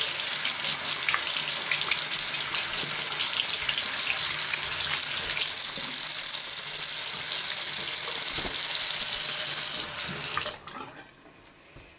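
Water running from a tap into a sink, a steady rush with small irregular splashes; the flow stops abruptly about ten and a half seconds in.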